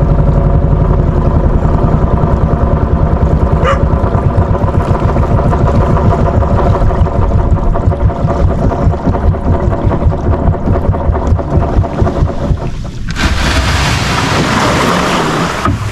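Small engine of a motorized outrigger boat (bangka) running steadily with a fast pulsing beat, slowing and dropping away about three-quarters of the way through. A hissing rush of water at the hull follows as the boat runs into the shallows at the beach.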